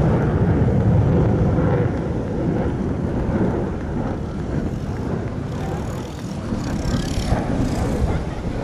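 Steady low rumble of a distant military fighter jet in flight, mixed with wind buffeting the microphone; a little louder in the first two seconds.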